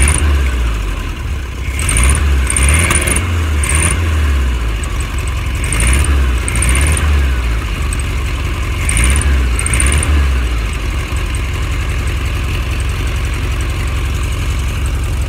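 1969 VW Beetle's air-cooled flat-four engine running as its throttle is opened by hand at the carburetor: the revs rise and fall four times over about ten seconds. For the last few seconds it settles to a steady idle. The project engine has just been brought back to running.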